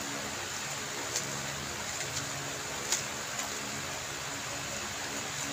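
X-Man Tornado V3M 3x3 speedcube being turned quickly during a timed solve: light plastic clicks of the layers snapping, a few sharper ones, the loudest about three seconds in, over a steady hiss.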